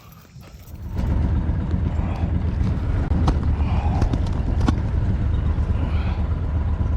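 An engine running steadily, cutting in abruptly about a second in, with a few sharp clicks over it.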